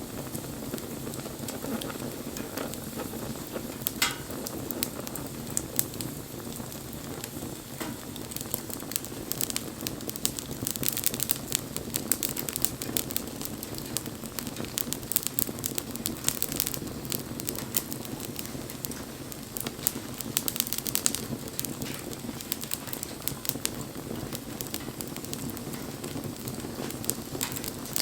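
Wood bonfire burning: a steady low rush of flame with constant crackling and popping of the burning wood, and one sharper pop about four seconds in.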